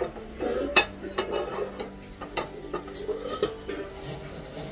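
Kitchen utensils and cookware clattering: a spoon stirring and scraping in a pan, with several sharp clinks scattered irregularly.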